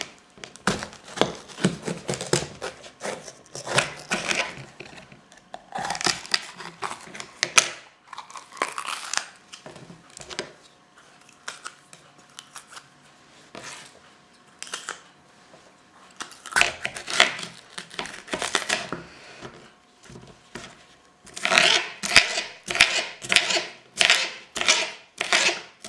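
Bell pepper being cut up with a knife on a plastic cutting board: irregular crisp crunching and scraping strokes, then near the end a steady run of chops about two a second. It is an awful, grating noise.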